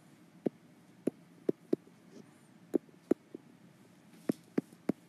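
Stylus tapping on an iPad screen while handwriting, about ten sharp, separate taps at irregular intervals over a faint steady room hum.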